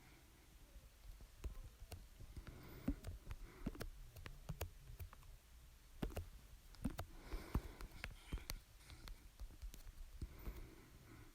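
A person hiccupping, a few sharp hiccups several seconds apart, with breathing and small clicks between them.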